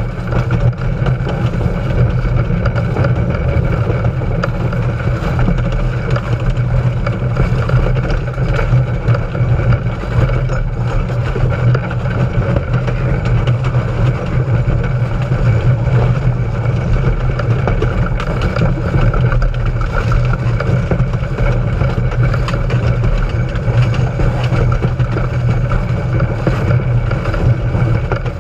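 Small steam locomotive running along the track, heard from low on its front end: a steady low rumble with no distinct exhaust beats.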